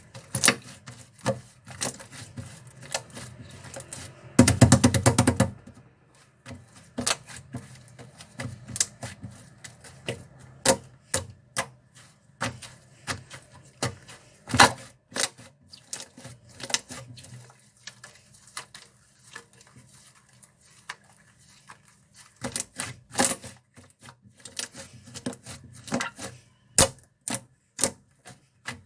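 Toffee slime being pressed and poked by hand, giving irregular sharp clicks and pops. About four to five seconds in there is a short, dense run of rapid crackling.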